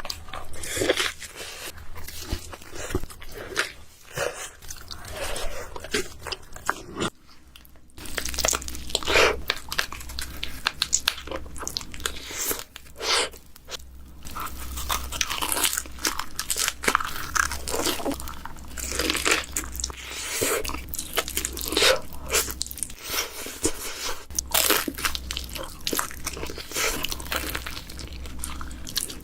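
A person biting into and chewing pizza close to the microphone: crisp crunching bites followed by chewing, one after another as separate bites cut together. There is a short quieter gap about seven seconds in.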